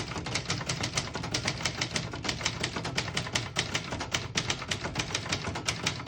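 1967 Brother Webster XL-500 manual portable typewriter being typed on: a fast, steady run of typebar strikes, several keystrokes a second.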